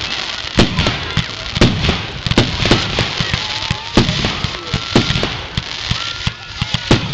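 Fireworks display going off in rapid, irregular succession: a dozen or so sharp bangs of bursting shells, about two a second, over a steady hiss and crackle of burning stars.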